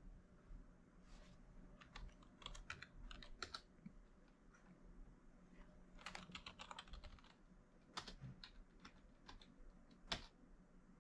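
Faint computer keyboard typing in short bursts of keystrokes, with a couple of single, sharper key presses near the end.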